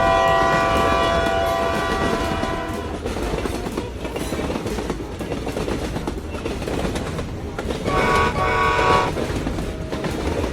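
Train running past with a steady rumble and clickety-clack of wheels on rail. Its horn sounds in a long blast of about three seconds at the start and again briefly about eight seconds in.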